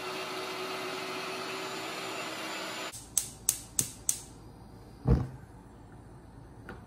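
Electric meat grinder running steadily as it minces raw chicken, stopping abruptly about three seconds in. Then four sharp clicks, about a third of a second apart, followed by a single low thump.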